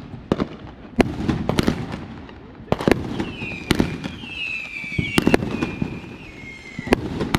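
Fireworks going off: about ten sharp bangs, several in quick pairs, each followed by crackle. High whistling tones slide down in pitch through the middle of the barrage.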